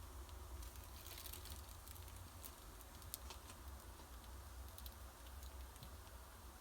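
Roti dough sizzling faintly on a hot griddle: soft crackling with scattered small pops, over a steady low hum.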